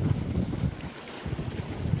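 Wind buffeting the microphone in a strong breeze, over water rushing along the hull of a sailing yacht under way; the buffeting eases for a moment about a second in.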